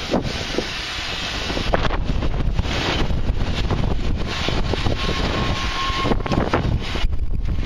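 Wind buffeting the microphone over a Snaefell Mountain Railway electric tram moving off and rolling past, with scattered knocks from its running gear.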